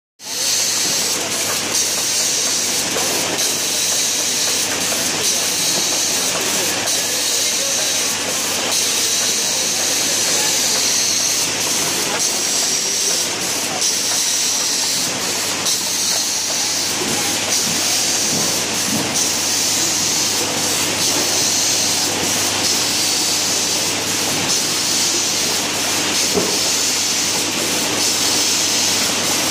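Bottle labelling and inspection machine running: a steady mechanical hiss over a low hum, with frequent light clicks as the conveyor carries plastic bottles through.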